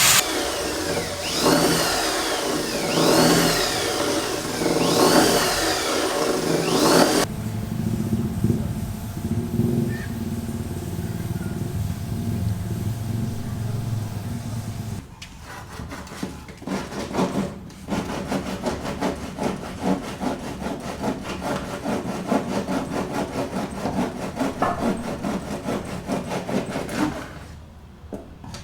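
Construction work sounds: first a power tool whose pitch rises and falls again and again, then a fast, even rhythmic rasping like sawing or filing.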